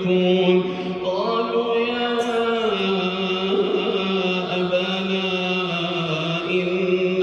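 A male voice reciting the Quran in melodic tajwid, drawing the words out into long held notes. The pitch rises about a second in and steps back down near three seconds.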